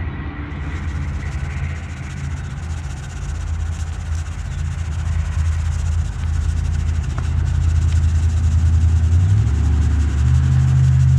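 Cummins 855 inline-six diesel engine running, growing louder through the span, its note changing near the end.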